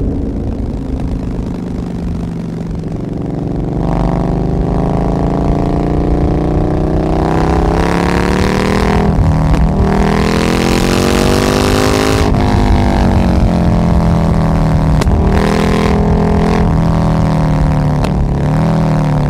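Motorcycle engine and exhaust heard from on board, accelerating in several rising pulls with brief gear-change breaks between them. The longest pull peaks past the middle with a rushing hiss, then the pitch falls away as the bike slows, with a few short rises and dips near the end.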